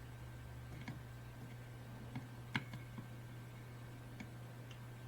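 A few faint, sparse clicks and light taps of small tools on a circuit board during soldering, the sharpest about two and a half seconds in, over a steady low electrical hum.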